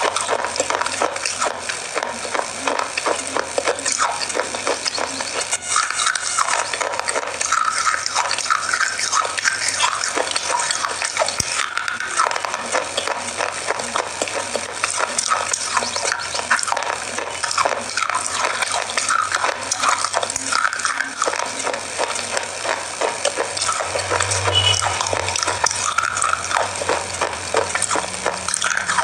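Crunchy biscuit being bitten and chewed close to a microphone: a continuous run of crisp crunches and crackles.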